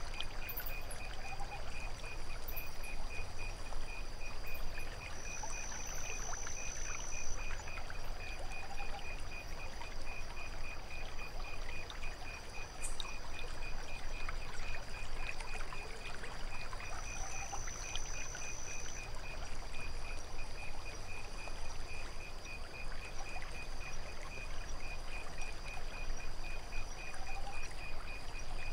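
Night nature ambience: trickling water under crickets chirping in a fast, even pulse and a continuous high insect trill. A higher insect buzz comes in twice, for about two seconds each time.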